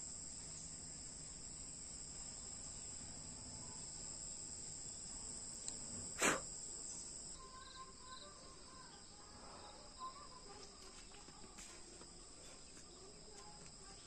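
Insects chirring in a steady, unbroken high-pitched drone, with a single sharp knock about six seconds in and a few faint chirps in the second half.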